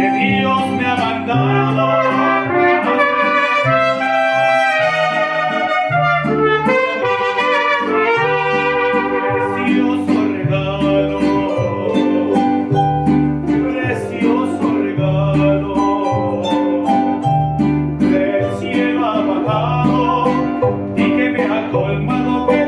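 Mariachi band playing an instrumental passage: trumpets carry the melody over strummed guitars and a plucked bass line that alternates at a steady beat.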